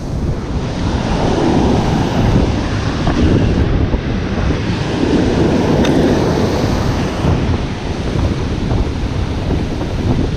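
Ocean surf breaking and washing up the beach, swelling twice, with wind buffeting the microphone.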